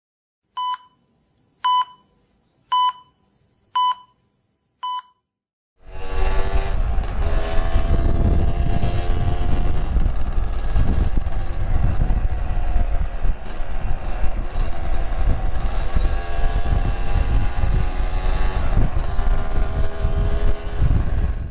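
Five short countdown beeps about a second apart, then a 2002 Yamaha RX-King's 135 cc two-stroke single-cylinder engine running under way, fitted with a replacement exhaust; its pitch rises and falls as the throttle changes, with wind rush over the microphone.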